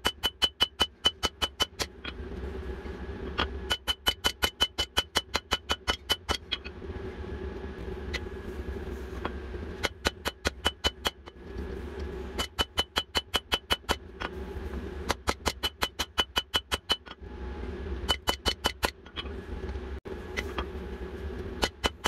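Hand hammer striking red-hot jackhammer-bit steel on an anvil while the point of a bick is drawn out. The blows come in quick runs of about six a second, each with a ringing clang from the anvil, broken by short pauses. A steady low hum carries on underneath.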